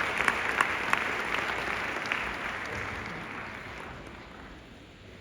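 Audience applause dying away: claps thin out and fade over about four seconds.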